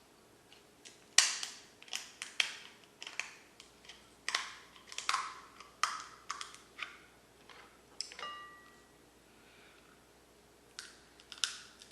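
Shellfish shells being cracked and broken apart by hand to get at the meat: sharp cracks and snaps in quick clusters, with a quiet pause in the middle and more cracking near the end.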